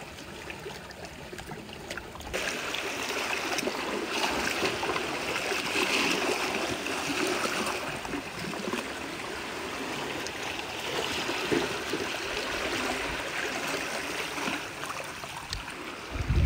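Shallow rock-pool water trickling and gurgling, growing a little louder about two seconds in.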